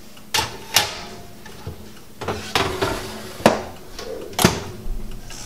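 A wire mesh basket clanking and scraping as it slides onto the rack of a Cuisinart air fryer toaster oven, then the oven's door clunking shut about four seconds in: a string of sharp metal clanks.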